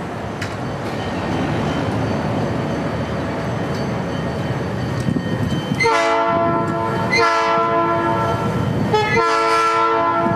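EMD F-unit diesel locomotive running with a steady low engine rumble. About six seconds in, its multi-note air horn starts the grade-crossing signal: long, long, short, then a long blast still sounding at the end.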